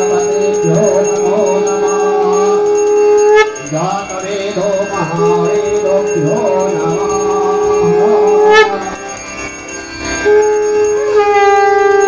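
Conch shells (shankha) blown in long, steady held notes: three blasts with short breaks between them. Near the end a second conch joins and the sound grows louder and fuller.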